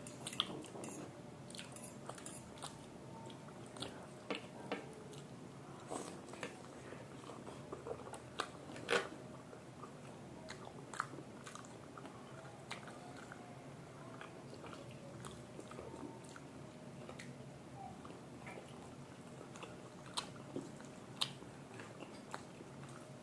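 Mukbang eating sounds: people chewing and biting into chow mein and momos, with scattered short clicks, the loudest about nine seconds in.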